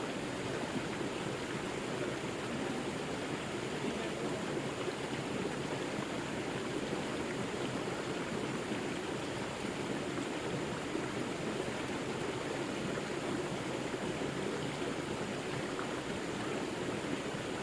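A river flowing: a steady, even rush of water, fullest in the low-middle range.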